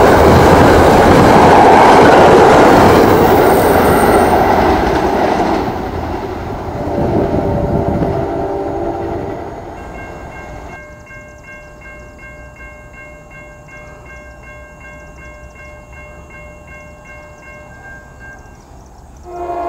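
An express diesel-hauled commuter train passes at speed with a loud rush of wheel and rail noise, and its horn sounds briefly. The train noise then falls away to a level-crossing warning bell ringing steadily about twice a second. A short horn note comes near the end.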